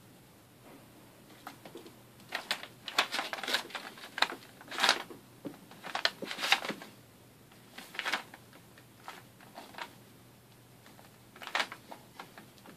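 Paper rustling and crinkling as a ferret scrabbles over loose sheets on a desk, in short irregular bursts with quiet gaps between them.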